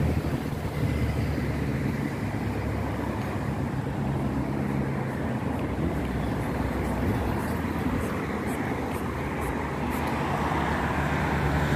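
Steady road traffic: cars driving past on a multi-lane road, a continuous rumble of tyres and engines.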